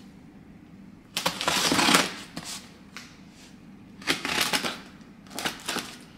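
Scissors cutting through the plastic packing tape that seals a cardboard parcel, in three scratchy bursts. The first comes about a second in and is the longest and loudest; two shorter ones follow near the end.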